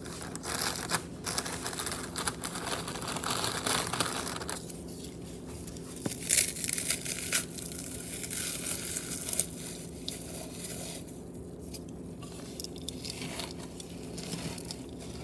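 Saltine crackers being crushed and crumbled by hand into a bowl of meatloaf mixture: dense crackling for the first four and a half seconds, then scattered crunches and snaps that thin out toward the end.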